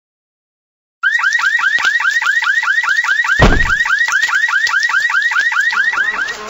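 An electronic alarm starts suddenly after a second of silence and sounds a rapid, even series of rising-and-falling chirps, about five a second. A single heavy low thud comes about halfway through.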